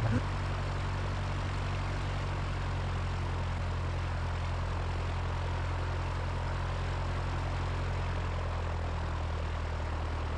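Propeller airplane engine running steadily with an even drone, its pitch and level unchanging throughout.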